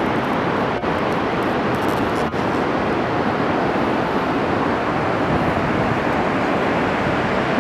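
Steady rush of a large waterfall, Shoshone Falls on the Snake River, heard as an even, unbroken wash of water noise.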